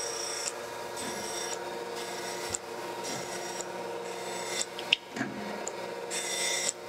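Thompson surface grinder running with its spindle hum steady while the table traverses a steel belt-grinder platen under the grinding wheel, with coolant flowing. A high grinding hiss comes and goes in stretches as the wheel takes light spark-out passes after a final downfeed of a couple of tenths. There is a single sharp click about five seconds in.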